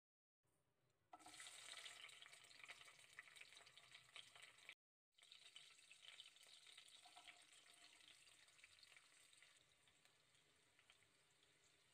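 Green chillies, then chopped onions, sizzling and crackling in hot ghee and oil in a frying pan. The sizzle starts suddenly about a second in, breaks off for a moment near the middle, and then goes on, slowly getting quieter.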